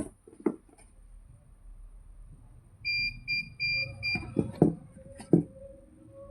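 Electric chiropractic adjusting gun: a couple of sharp clicks, then four short electronic beeps in quick succession, then several loud sharp clicks.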